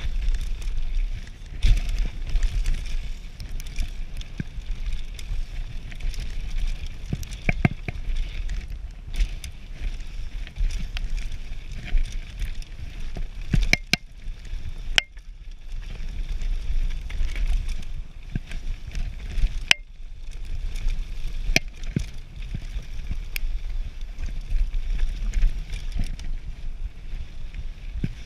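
Carbon enduro mountain bike descending a rough dirt and rock trail, heard from a camera riding with it: a steady rumble of tyres and wind on the microphone, broken by frequent sharp clacks and rattles as the bike hits rocks and roots.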